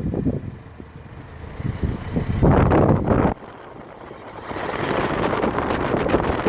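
2014 Mercedes-Benz GLA200 driving under acceleration, with a loud rushing noise that rises in two surges, the first cutting off sharply. The owner finds this noise abnormal for a car with under 30k on the clock. Wind buffets the microphone throughout.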